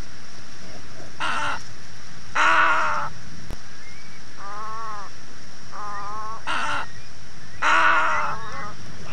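Little egret calling: harsh, grating croaks in two pairs about five seconds apart, the second croak of each pair the longer and louder. Two shorter, wavering calls come between the pairs.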